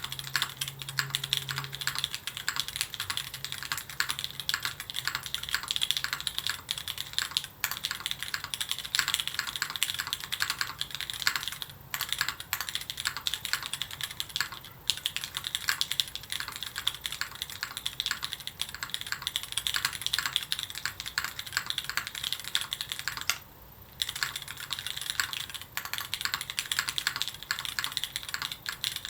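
Fast continuous typing on a Keycult 2/65 mechanical keyboard with lubed Cherry MX Hyperglide Black linear switches in an aluminium plate and GMK keycaps: a dense run of key clacks, paused briefly a few times.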